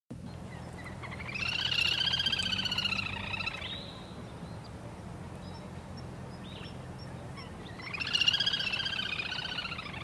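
Little grebe giving its whinnying trill twice: two long, rapidly pulsing high-pitched calls that rise and then fall slightly, one about a second in and another near the end.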